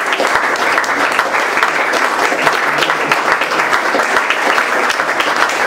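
Live audience applauding steadily: many hands clapping at a dense, even rate.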